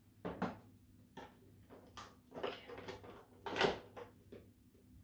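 Hands handling a drone and its parts in a plastic packaging tray: a string of short plastic clicks, knocks and rustles, the loudest about three and a half seconds in.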